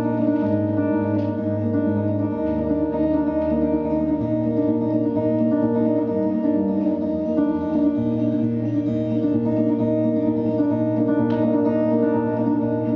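Live band music: an instrumental passage of a song between sung verses, guitar over a bass line that changes note a few times, no singing.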